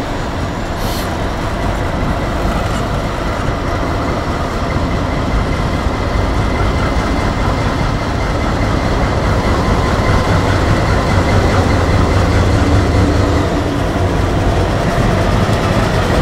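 Several Canadian National diesel-electric freight locomotives rumbling past at slow speed with their engines running. The low engine drone grows louder partway through as the units come alongside, over a faint steady high tone.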